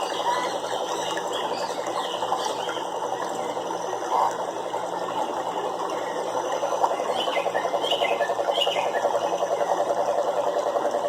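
A chorus of frogs calling in a steady, fast pulsing rhythm that grows stronger in the second half, with short chirps over it.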